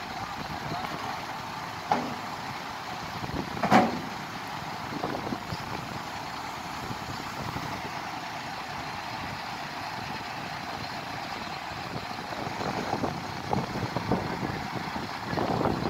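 Mobile crane's diesel engine running steadily while it holds an aircraft fuselage section on its slings, with a short sharp sound about two seconds in and a louder one nearly four seconds in.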